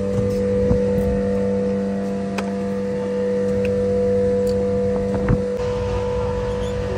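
Suzuki outboard motor idling at a steady speed, an even hum, with a few light clicks and knocks about a second, two and a half seconds and five seconds in.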